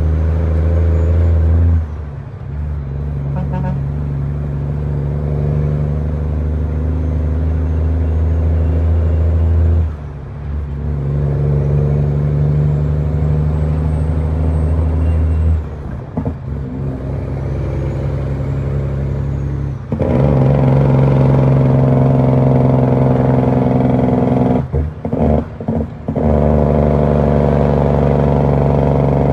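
Western Star truck's diesel engine pulling through the gears, heard from inside the cab. The engine note drops out briefly about five times as the driver changes gear on the manual gearbox, with a few quick on-off dips near the end.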